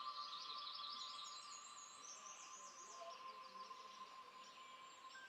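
Faint recorded birdsong: a bird repeating quick chirping notes, then a higher run of notes that ends about three seconds in, over a faint steady hum of two held tones.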